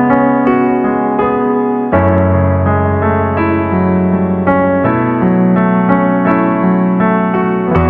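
Slow instrumental electric piano music with sustained chords that change about every three seconds.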